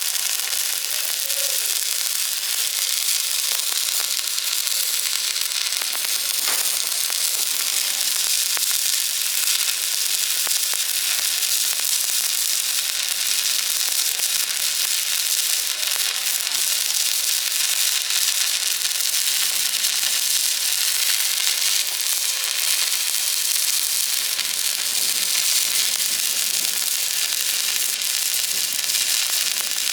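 Electric welding arc burning steadily through one continuous bead, giving an even crackling hiss.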